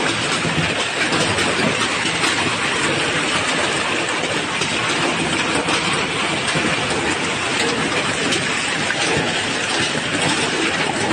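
Heavy hail pelting the street and stall canopies: a steady, dense clatter of countless stones striking.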